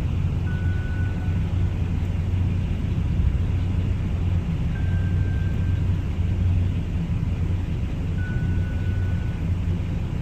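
A steady low rumble, with three faint, brief high tones, each about a second long, near the start, in the middle and near the end.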